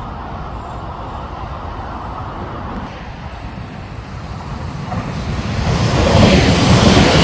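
JR West 521 series two-car electric train approaching: a steady rumble that grows much louder from about five seconds in as the train nears.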